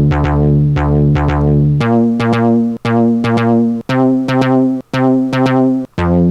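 A sampled bass line from the original Amiga soundtracker sample disks, played back as a tracker pattern in Renoise. Repeated notes about two a second, the pitch stepping up about two seconds in and again near four seconds.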